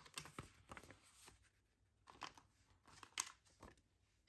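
Faint crinkles and taps of plastic polymer banknotes being handled and set down in a clear plastic cash tray: a few short, sharp sounds spread through, the loudest a little after three seconds in.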